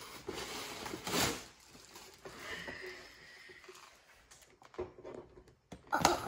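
Paper gift bag and tissue paper rustling and crinkling as a child digs through it by hand, loudest about a second in, then dying down to a few faint crinkles and clicks.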